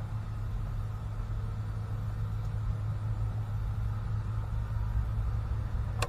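Steady low hum of an engine or motor running, unchanging throughout.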